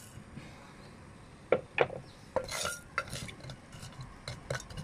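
Wooden spoon stirring whole spices in hot olive oil in a saucepan, knocking and scraping against the pan in a dozen or so irregular clicks from about a second and a half in, over a faint sizzle of the oil.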